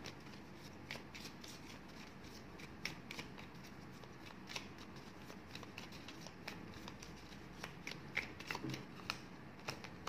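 Tarot and oracle cards shuffled by hand: faint, irregular flicks and taps of the cards, a few every second.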